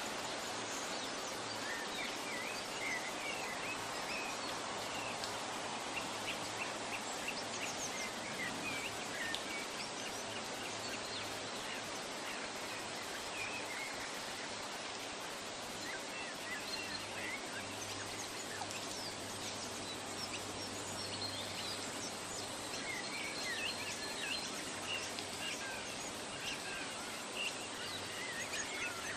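Forest ambience: many birds chirping in short, scattered calls over a steady background hiss, with a faint low hum underneath.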